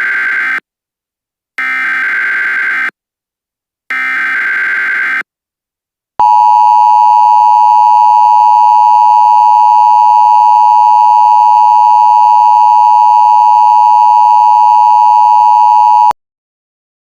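Emergency Alert System SAME header: three bursts of shrill warbling data tones, each about a second and a half long, the first already under way. After a short gap comes the EAS attention signal, one loud steady tone held for about ten seconds, which cuts off abruptly near the end.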